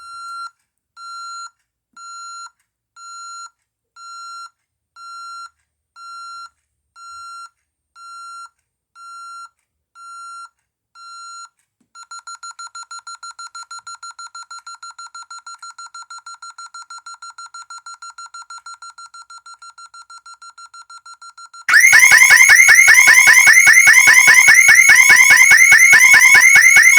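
Honeywell home alarm system going off: a high electronic beep about once a second, then fast continuous beeping, then about 22 seconds in a much louder alarm siren starts, its tone sweeping up and down several times a second.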